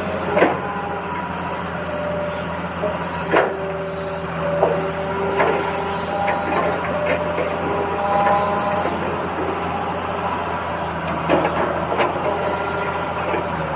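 Small electric motor of a toy vehicle whirring steadily, with scattered plastic clicks and knocks, about half a dozen, and a few short tones.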